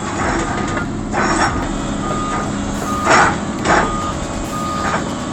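A heavy machine's reversing alarm beeping, a single steady tone repeated about once a second, over a running engine. A few short bursts of hiss come in between.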